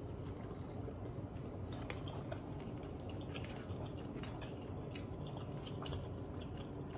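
A person chewing a mouthful of a tortilla and seaweed wrap, quiet, with small wet clicks and soft crunches scattered throughout.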